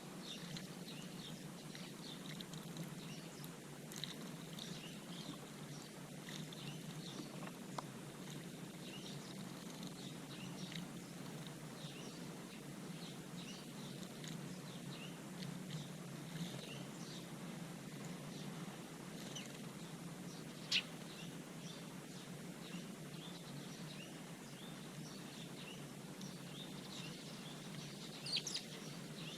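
Small garden birds chirping, many short high calls scattered throughout, with one sharper, louder call about two-thirds of the way in and a quick flurry near the end, over a steady low background hum.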